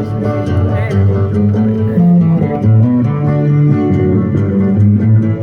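Music led by plucked guitar, with a bass line moving underneath.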